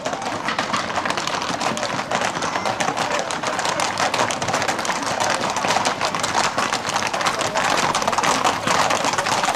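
Hooves of a tight pack of Camargue horses clattering on asphalt: a dense, rapid run of hoof clicks that grows louder as the horses draw near.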